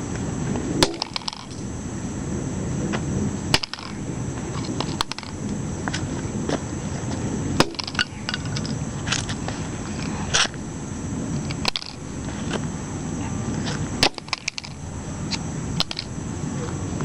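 Sledgehammer blows smashing a Sony Ericsson mobile phone: about eight sharp, heavy strikes a couple of seconds apart, each with a brief crack of breaking plastic.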